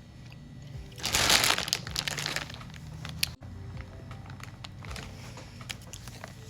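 Boiled crawfish being cracked and handled by hand: a crackling crinkle starting about a second in and lasting about a second and a half, then a few small clicks.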